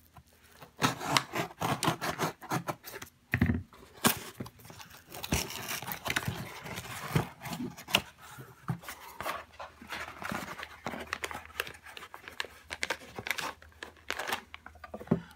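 Cardboard mailing box being slit open with a blade along its tape, then its flaps, paper and packing handled with irregular scrapes, tearing and rustling. Near the end a clear plastic bag crinkles as it is pulled out.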